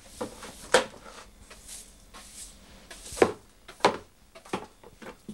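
Broom sweeping debris across a vinyl tile floor towards a long-handled dustpan: a series of separate short brush strokes and light knocks, roughly one a second, the sharpest a little past halfway.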